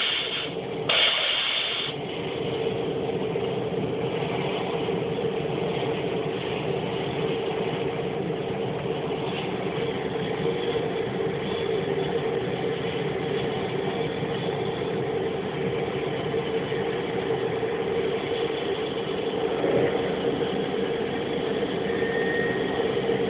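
T-34C Turbo Mentor's Pratt & Whitney PT6A turboprop running steadily at ground idle, a constant drone with a strong unchanging hum.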